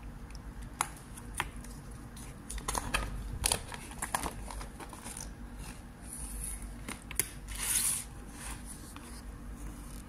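Paper pages of a ring-bound desk calendar being handled and flipped: scattered crinkles, rustles and light clicks, with two longer page-turning rustles in the second half.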